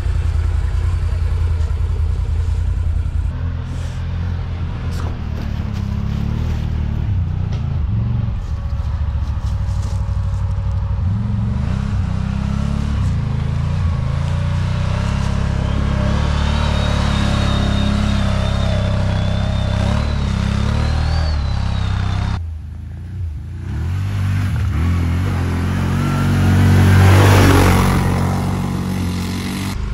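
An off-road ATV engine running under load, its revs rising and falling as the quad works over rough ground. There is a sudden break about three quarters of the way in, then one loud rev that swells and dies away near the end.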